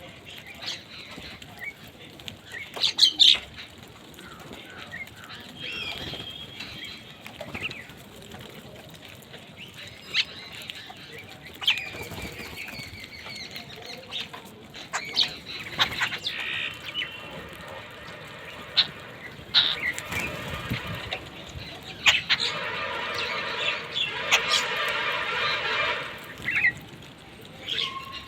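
A group of birds feeding, with wing flaps, short chirps and clicks throughout, and two longer spells of rapid, rattling chatter, one in the middle and one near the end.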